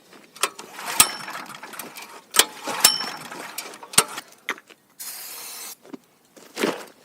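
Sharp metallic clicks and clanks from handling a portable generator's switches and parts, four of them ringing out clearly. A short hiss comes about five seconds in.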